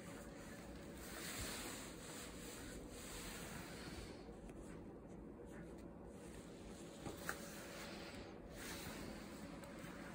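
Soft rustling and rubbing of sweatpants fabric being handled and stretched at the elastic cuff, coming in a few swells, with two short ticks about seven seconds in.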